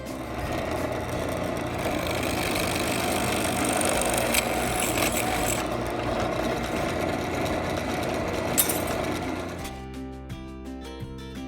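Central Machinery 8-inch 5-speed bench drill press running, with a steady motor and belt drone and harsher spells about four to five seconds in and near the end. It cuts off suddenly about ten seconds in. Background music plays underneath.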